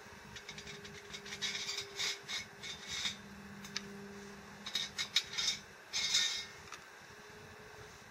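Steel camping mugs and a small tin being handled on a wooden bench: scrapes and light clinks in two bunches, one about a second in and another around five seconds in.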